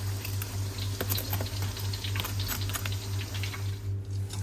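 Hot oil sizzling with scattered crackles and pops as vegetable fritters deep-fry in a wok, over a steady low hum.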